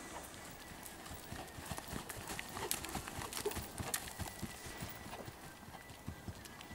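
Hoofbeats of a horse cantering on a sand arena surface, a steady run of soft thuds and knocks.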